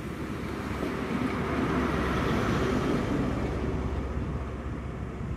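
Diesel power car of an InterCity 125 HST passing and drawing away, its engine and wheels giving a steady rumble that swells about two seconds in and then fades.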